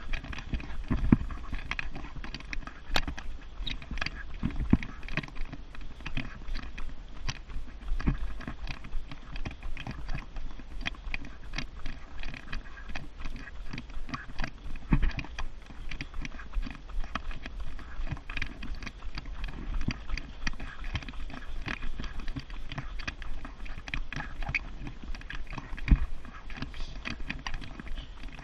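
Thule jogging stroller rattling and its wheels rolling over a paved path as it is pushed at a run, with dense irregular clicks and knocks and occasional low thumps throughout.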